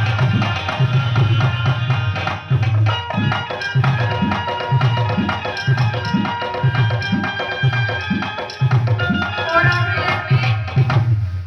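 Music with a steady, heavy bass beat and a melody over it.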